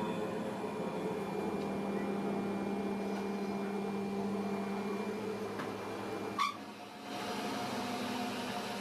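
Metal lathe shop: a steady electric machine hum, broken about six and a half seconds in by one sharp metallic clack. After a short dip, a different steady hum takes over.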